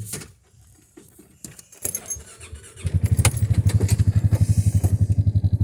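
Keys jangling and clicking, then about halfway through a small vehicle engine starts up and runs with a fast, even low pulse.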